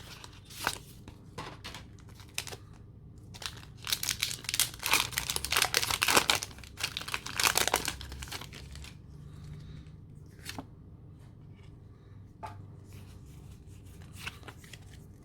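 A foil Pokémon trading card booster pack being torn open. The wrapper tears and crinkles in a dense run of bursts in the middle, then gives sparser, quieter crinkles and clicks.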